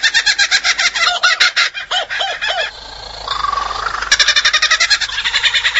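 Superb lyrebird singing its mimicry song: rapid trains of high, clipped notes, a few looping lower notes a little after two seconds in, and a rising whistle at about three seconds, each phrase copied from other forest birds.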